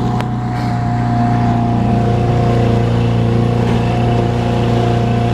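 15-horsepower outboard motor running steadily under way, pushing a small boat.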